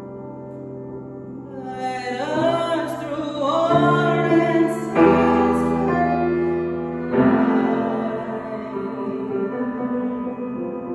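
A woman sings a wavering, ornamented melodic line over sustained grand piano chords. The voice comes in about two seconds in. The piano strikes fresh chords three times, around four, five and seven seconds in.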